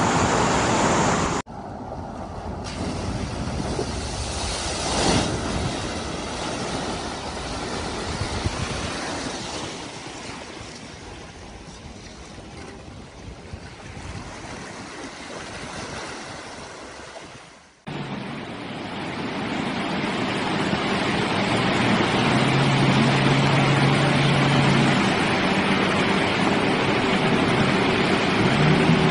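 Vehicles driving through deep water: a steady rush and splash of water with engines running underneath, and an engine note rising near the end. The sound breaks off abruptly twice, about a second and a half in and again about eighteen seconds in.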